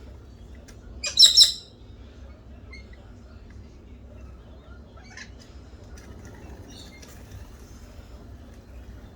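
Wild birds calling: a loud, harsh, quickly repeated squawk about a second in, then a few faint chirps later on over a low steady rumble.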